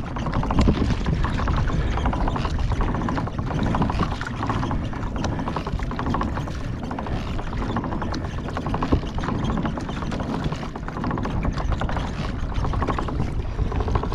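Gusting wind rumbling steadily on the microphone, with water sloshing and lapping in the shallows.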